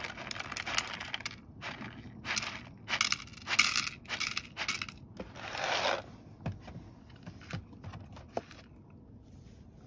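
Dry cat kibble poured from a paper carton into a bowl, rattling in several short pours over the first six seconds, then a few faint ticks.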